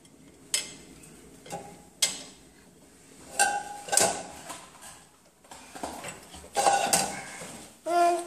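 Plates and a small pot clinking and knocking against each other and the wire rack of a dishwasher, handled by a small child: a scattered series of sharp clinks, a few ringing briefly.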